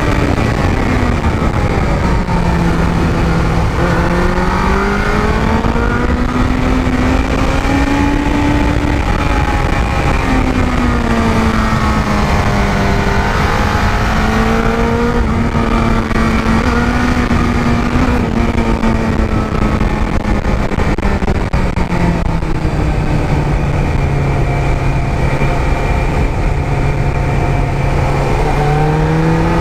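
Superbike engine running hard under the rider, its revs climbing and dropping again and again through gear changes and corners, over a steady rush of wind noise.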